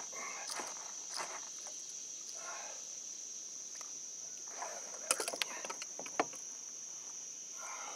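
Insects droning steadily at one high pitch. Sharp clicks and rattles from hands working a bass free of a landing net and lure come in a cluster about five to six seconds in.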